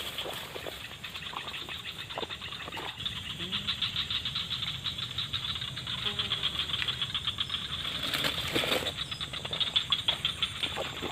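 Rapidly pulsing high buzz of forest insects, with a few soft knocks in the first few seconds and a louder rustle near the end.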